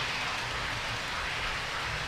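Model trains running on the layout's track, a steady even hiss-like rumble of wheels on rail with no separate clicks or beats.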